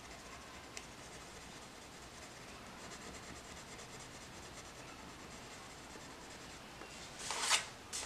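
Prismacolor coloured pencil shading on a colouring-book page: a faint, steady scratching of the pencil across the paper. Near the end a louder rustle as a hand brushes over the page.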